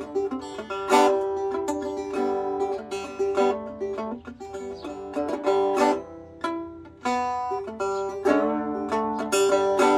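Fretless banjo played with its tape fret markers removed, so the strings are stopped straight on the bare fingerboard. Plucked melody notes come about twice a second over a steady ringing note, softening briefly around six to seven seconds in.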